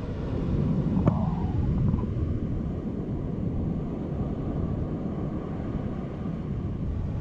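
Wind buffeting the microphone over the steady rumble of ocean surf, with a single sharp click about a second in.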